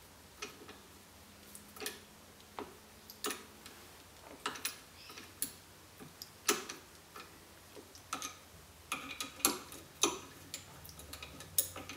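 Scattered sharp metallic clicks and taps as the nuts on a connecting-rod big-end cap are run down and nipped up by hand, coming faster in the second half.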